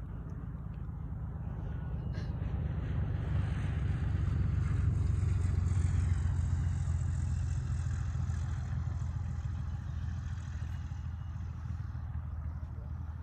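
Engine and propeller of a small single-engine jump plane, a steady drone that grows louder to a peak about halfway through and then fades somewhat.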